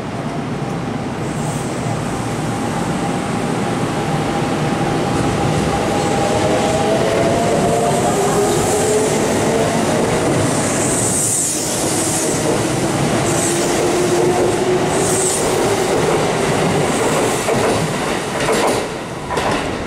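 Kintetsu 1252-series electric train pulling out of the station and accelerating past at close range. Its traction motors whine in several rising tones over the running noise of the wheels on the rails.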